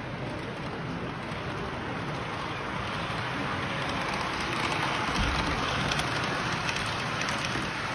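Model train running along layout track, a steady rushing noise that grows louder about halfway through as the train passes close by.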